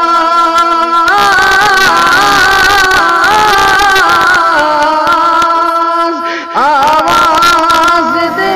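Wordless melodic interlude between lines of the naat: a string of held notes stepping from pitch to pitch, with a brief drop and sliding notes about six and a half seconds in.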